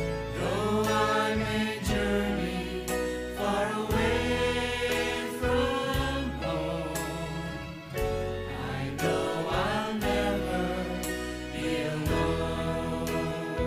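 Gospel song with voices singing over instrumental backing, a sustained bass and a steady drum beat.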